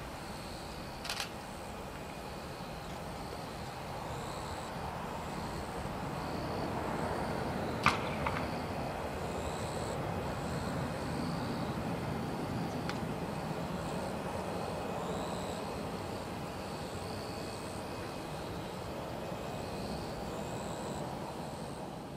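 Airbus A320-214's CFM56 jet engines heard from the ground as it climbs away after takeoff: a steady distant rumble that swells gently and then slowly fades. High repeated chirps run above it, with a few sharp clicks near the start and about eight seconds in.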